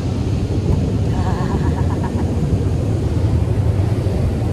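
Automatic car wash running over the car, heard from inside the cabin: water spray and wash machinery give a steady, loud, low noise on the car body.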